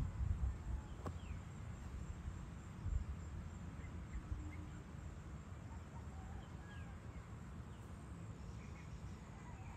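Faint scattered bird chirps over a low, gusty rumble of wind on the microphone, with a single click about a second in.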